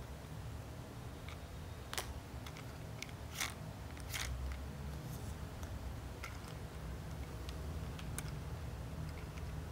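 Plastic toy wheels and chassis parts clicking and tapping as they are handled and turned, a few sharp clicks standing out, over a steady low hum.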